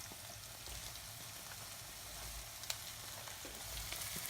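Hot oil sizzling steadily in a pan of frying onions and spices as sliced okra (vendakkai) goes in, with scattered light crackles and one sharp click a little past halfway. The sizzle grows slightly louder near the end.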